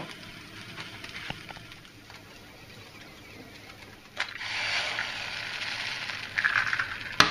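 Food sizzling in a frying pan: a soft frying hiss that grows louder about four seconds in, with a sharp click there and another near the end.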